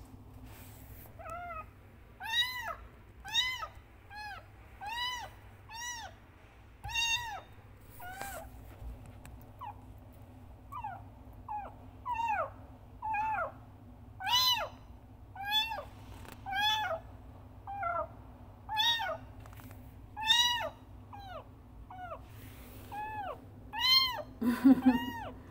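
A young kitten meowing loudly over and over, crying for its mother cat. The calls are short and high, each rising and falling in pitch, and come about one a second.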